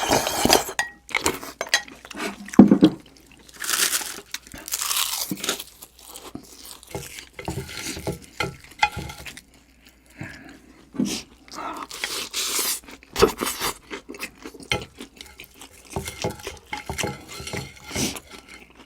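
Eating sounds: crunchy bites and chewing of fried cheese pork cutlet, with utensils clicking and scraping on the dishes.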